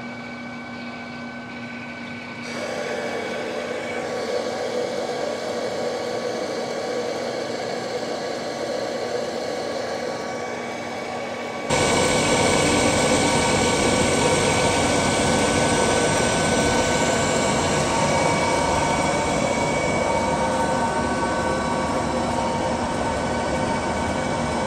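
Precision Matthews metal lathe running with a steady gear whine. About two and a half seconds in, a carbide insert starts turning a metal bar under a small drip of flood coolant, adding a steady hiss of cutting. The sound gets louder again about twelve seconds in.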